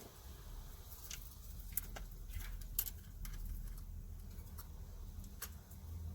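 Scattered light clicks and taps of a screwdriver and the plastic dome light cover as a screw is driven in, over a low steady hum.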